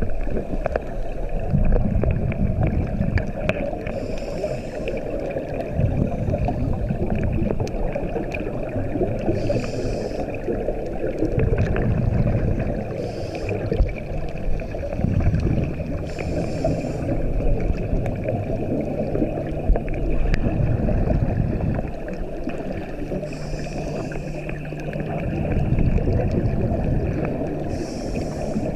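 A scuba diver breathing through a regulator underwater, heard through the camera housing. Each breath gives a short hiss on the inhale, then a low rumble of exhaled bubbles, every four to five seconds, over a steady background hum.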